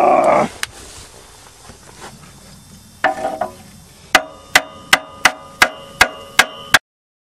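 A starter motor whirs loudly for a moment at the very start and stops. About four seconds in, a hammer begins striking metal: nine sharp, ringing blows, roughly two and a half a second, ending abruptly.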